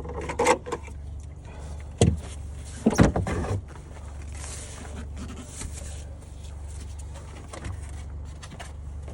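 Sharp knocks and clunks of trim and parts being handled in a car's trunk, a few loud ones in the first few seconds, then smaller clicks, over a low steady hum.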